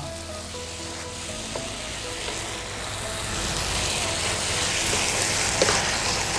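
Diced shrimp-and-pork dumpling filling sizzling in a hot frying pan just after a splash of water is poured in, stirred with a wooden spatula. The sizzle grows louder from about halfway.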